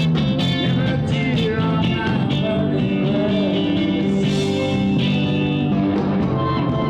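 A rock band playing live, with electric guitar over bass and drums.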